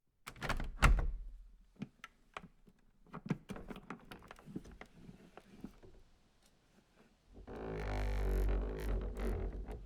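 Something vibrating against a wooden surface: a run of irregular knocks and clicks, one heavy thump about a second in, then a steady buzzing rattle on the wood starting about seven seconds in and lasting about two seconds.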